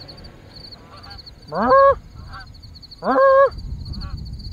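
Canada geese honking: two loud honks, each rising and then held, about a second and a half apart, with fainter honks from other geese in the flock around them.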